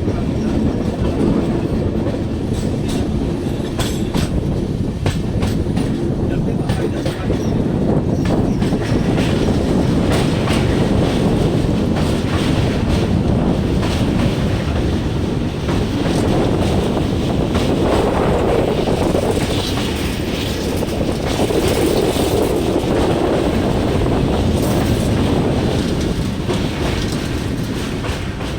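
Passenger train running at speed on the rails: steady rumble of the coaches with the clickety-clack of wheels over the track, sharp clicks thickest in the first third.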